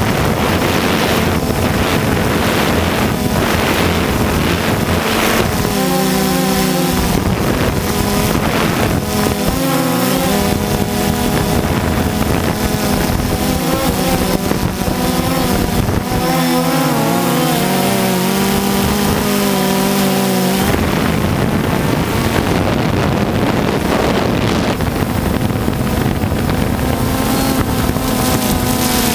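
DJI Phantom 2 quadcopter's motors and propellers buzzing under heavy wind noise on the onboard microphone. From about six to twenty seconds in, the motor pitch wavers up and down; a steadier buzz returns near the end.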